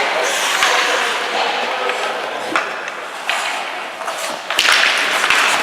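Ice hockey play on a rink: skate blades carving and scraping the ice in repeated hissing surges, with short sharp knocks of sticks and puck and spectators' voices in the background.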